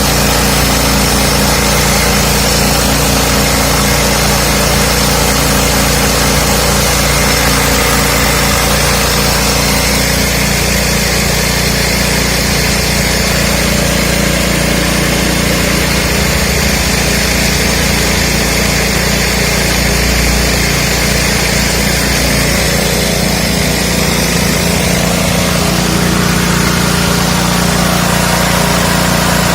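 Mini rice-milling machine driven by a small 5.5 hp single-cylinder petrol engine, running steadily and loudly. The mill's higher whirring changes about ten seconds in and again near the end.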